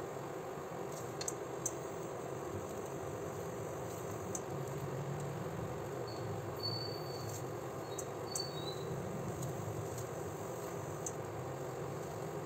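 Steady room hiss with a few faint sharp clicks as a kitchen knife slices onion held in the hand over a bowl.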